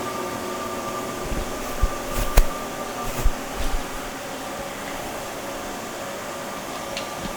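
Haas TM-1 CNC vertical mill running through a demonstration cycle: a steady machine hum with a held whine. A few low clunks and one sharp click come between about one and four seconds in.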